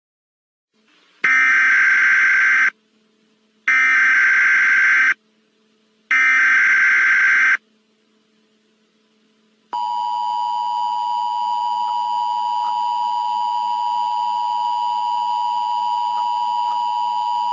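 Emergency Alert System header tones: three bursts of digital data tones, each about a second and a half long, then the steady two-tone attention signal for about eight seconds, which announces an alert message.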